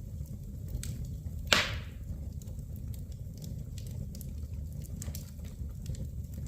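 Wood fire burning in a fireplace: a steady low rumble with scattered small crackles, and one loud snap with a brief hiss about a second and a half in.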